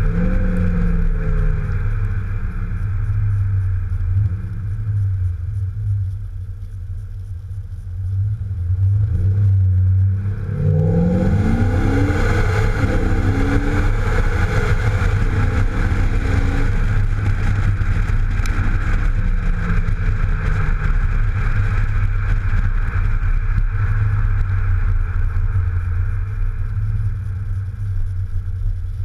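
Exhaust of an Audi A7 3.0 BiTDI, a twin-turbo V6 diesel, with a deep low drone while driving. It eases off for a few seconds, then about 11 seconds in it accelerates and grows louder, the pitch climbing several times in quick succession, over a hiss of wind and tyre noise.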